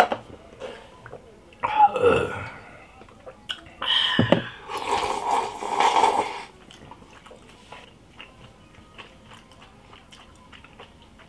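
Mukbang mouth sounds: a gulp of a drink, then two loud breathy throat-and-mouth noises about two and five seconds in, followed by quiet chewing with small scattered clicks.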